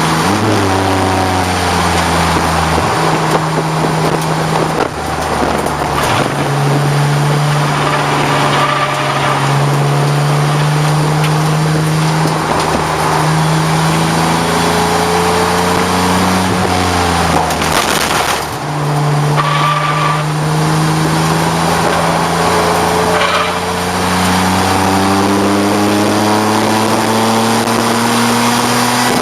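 1989 BMW 535i's straight-six engine running hard on a race track, its pitch climbing slowly through the revs and dropping sharply several times at gear changes or lifts, once near the start, around three and six seconds in, and again around eighteen seconds in.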